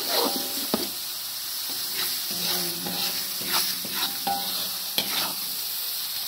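Spice paste sizzling in hot oil in a metal wok while a spatula stirs and scrapes it around the pan, with a scrape every half second to a second over a steady hiss. The paste is being sautéed until it is cooked and the raw spice smell is gone.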